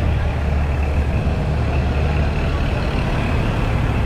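Heavy truck diesel engine running steadily, a continuous low drone.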